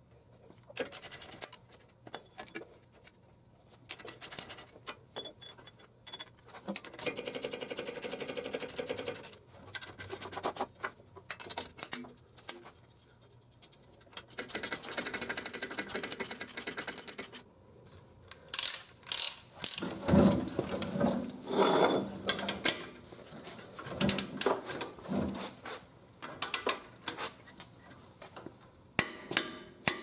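Ratchet head of a torque wrench clicking in runs of quick strokes as the wheel hub assembly's mounting bolts are turned down and torqued. The strokes grow louder and more uneven from about twenty seconds in.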